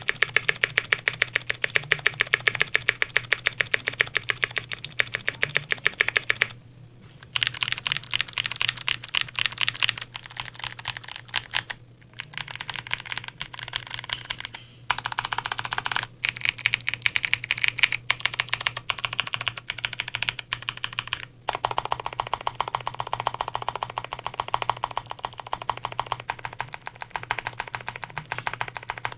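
Fast, continuous typing on a custom KBD75v3.1 mechanical keyboard with a brass plate, lubed clicky Kailh Speed Bronze switches and GMK keycaps. Each keystroke gives a sharp click, and the typing stops briefly a few times.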